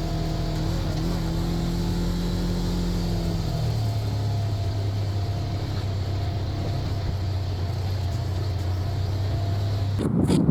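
Engine running steadily. Its hum drops to a lower pitch about a third of the way in and then holds, with a sharp click at the very end.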